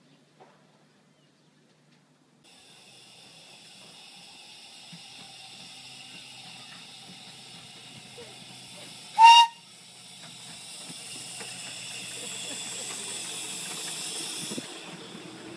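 Steady hiss of steam from a 7¼-inch gauge 0-4-2 side tank steam locomotive, growing louder as it approaches, with one short, loud toot of its steam whistle about nine seconds in. The first couple of seconds are near silent.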